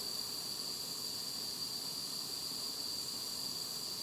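Gas soldering torch flame hissing steadily while heating a silver brooch for silver soldering. A thin, high steady whine runs alongside the hiss and stops near the end.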